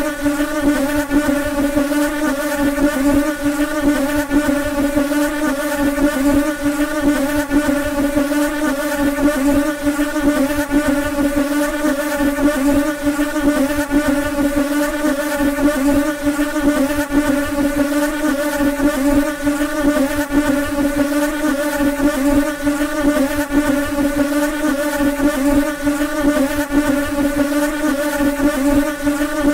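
Flies buzzing: one unbroken, loud wing drone with a strong low hum and a ladder of higher overtones, its pitch wavering slightly.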